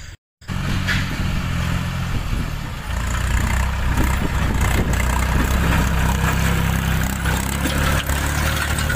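Force OX25 tractor's three-cylinder diesel engine running steadily under load while pulling a disc harrow through soil.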